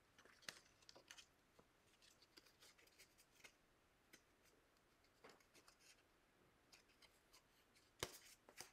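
Faint, scattered light clicks and rustles of paper craft pieces and twine being handled on a tabletop, a little louder near the end.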